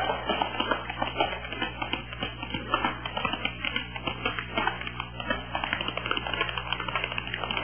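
Tap shoes striking a stage floor: a fast, uneven run of tap-dance steps, many sharp taps a second.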